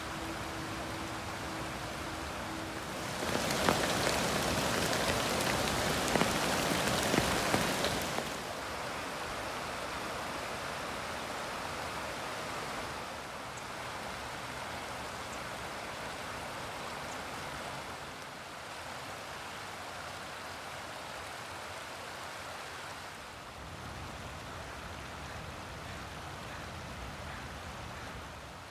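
Steady rush of a shallow forest creek running over gravel and stones. Its sound briefly grows much louder and hissier for about five seconds, then settles lower in a few small steps.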